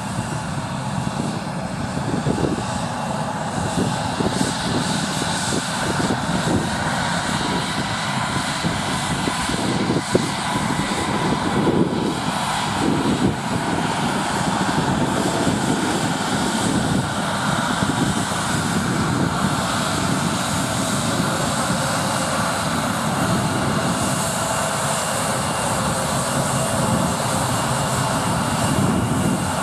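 Embraer E-Jet airliner's twin turbofan engines running at low taxi power as the plane rolls past: a steady whine over a continuous rumble.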